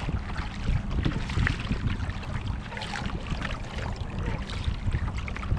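Water lapping and splashing against a fishing kayak's hull, with wind buffeting the microphone in a steady low rumble.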